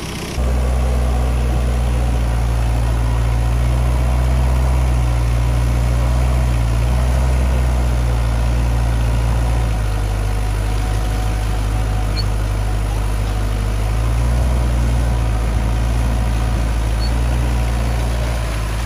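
Diesel engine of a small excavator running steadily at idle, with water rushing along a freshly dug drainage ditch.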